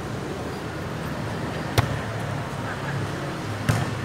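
Two sharp smacks of a volleyball being struck during play, nearly two seconds apart, over a steady low hum.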